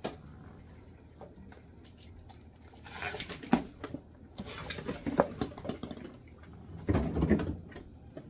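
Containers being handled and set down inside a refrigerator: scattered knocks, taps and rustling, in clusters about three, five and seven seconds in.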